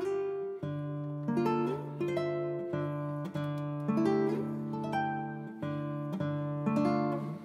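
Background music: acoustic guitar playing plucked chords, each note ringing out and fading before the next chord.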